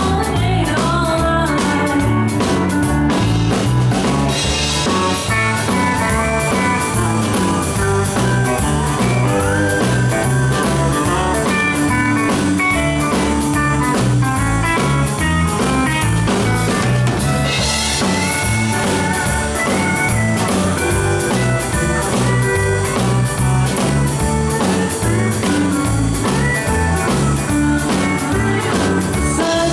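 Live country band playing with guitars, bass and drum kit to a steady beat, and a woman singing over it at times.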